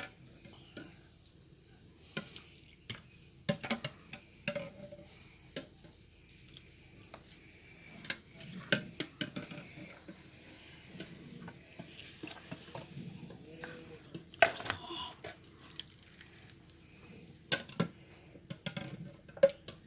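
A spoon stirring jelly mix in hot water, making irregular scrapes and clinks against the container to dissolve the jelly crystals.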